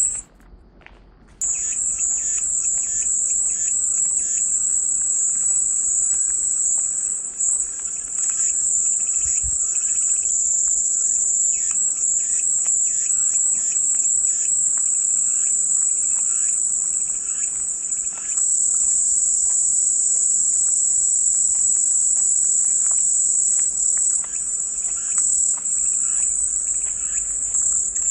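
Cicadas buzzing in a steady, continuous high-pitched drone that cuts out for about a second near the start and then resumes.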